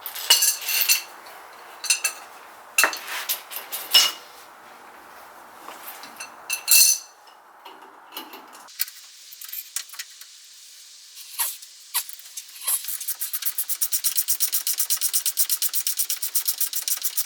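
Hand tools working a shock-absorber bolt: scattered metallic clinks and knocks over the first several seconds, then a long run of fast, even ratchet clicks as the bolt is backed out.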